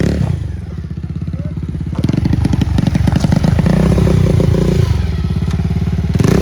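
Motorcycle engine running on a rough road, quieter at first and louder from about two seconds in.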